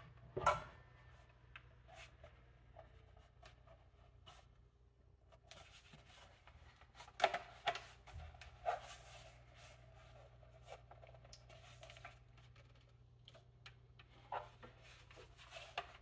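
Light clicks, taps and short rubbing noises of small hard parts being handled, with a steady low hum underneath. The sharpest click comes about half a second in, a cluster of clicks and scraping follows in the middle, and a few more come near the end.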